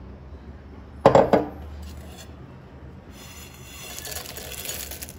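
Dried prawns being tipped from a steel plate into a glass bowl of water to soak: a sharp knock of dishware about a second in, then a rattling, splashing pour of the prawns over the last two seconds.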